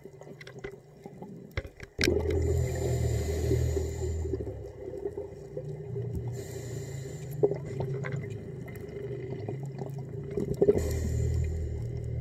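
Underwater sound of a scuba diver breathing: a low rumble of exhaled bubbles with a hiss from the regulator that returns about every four seconds, after a couple of seconds of scattered clicks.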